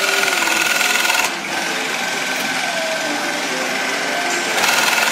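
TOPEAGLE TR-168-2 industrial double-thread side-seam shoe sewing machine running with a steady high whine. About a second in, the whine drops out and the running goes a little quieter, then comes back near the end.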